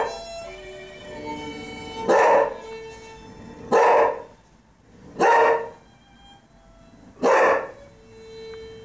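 A dog barking in loud single barks, about five of them spaced roughly one and a half to two seconds apart, over music with long held notes.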